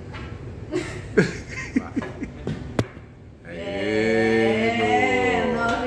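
A few sharp clicks of pool balls and short vocal sounds, then a voice holding one long sung note for about two seconds near the end.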